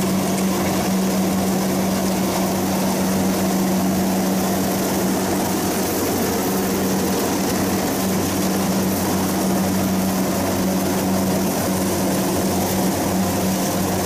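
Kubota DC-60 tracked combine harvester running under load while harvesting rice: its diesel engine and threshing machinery make a steady, unchanging drone with a strong low hum.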